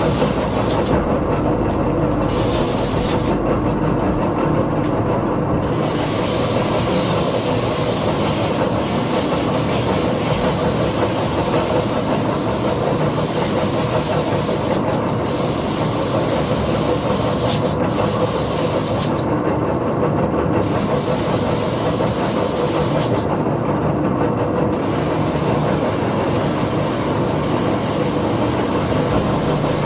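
Electric woodworking power tool running steadily with a constant hum and whirring noise, used in shaping and sanding a skateboard deck; the high hiss drops away briefly a few times.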